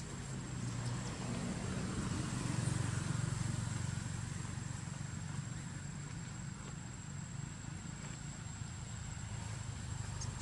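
Low engine rumble of a passing vehicle, swelling about two to three seconds in and then slowly fading, over a steady high-pitched whine.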